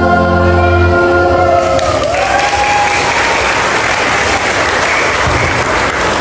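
A mixed choir holds its final chord, which dies away about two seconds in, and the audience breaks into steady applause.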